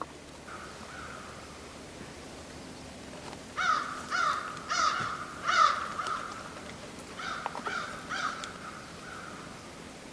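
A crow cawing: a run of about four harsh caws, then after a short pause three more.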